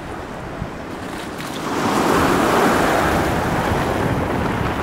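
Sea waves washing onto the shore, with wind buffeting the microphone; a wave surges in louder about two seconds in and the wash stays up.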